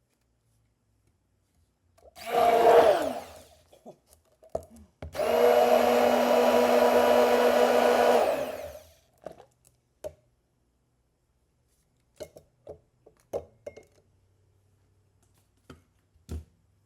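Ninja immersion blender blending a drink in two runs. A short burst about two seconds in winds down in pitch, then a steady run of nearly four seconds follows. Light clicks and knocks come after.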